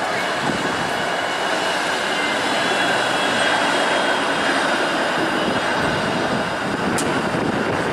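A TTC Flexity Outlook low-floor electric streetcar passing close by, its steel wheels running on the rails with a steady rumble and a faint high steady tone, growing a little louder midway as it goes by. A short sharp click near the end.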